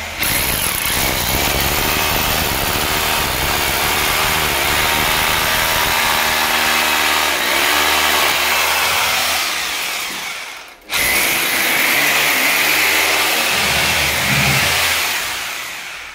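Electric drill boring injection holes into the floor along the base of a wall for anti-termite treatment, running loudly with a wavering pitch. It stops briefly about eleven seconds in, starts again, and stops near the end.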